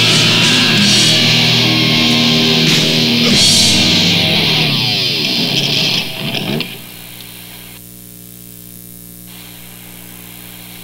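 Lo-fi 1988 experimental death/thrash metal demo tape recording: a distorted electric guitar band playing loud and dense, with falling, sliding notes about five seconds in. The band then stops, and for the last four seconds only a few low notes ring on quietly.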